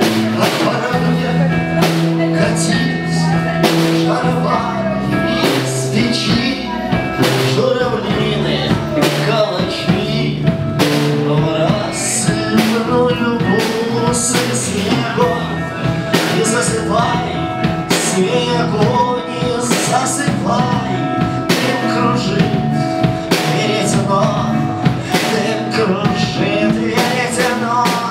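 Instrumental passage of a rock song: a drum kit keeps a steady beat under sustained instrumental notes, with no vocals.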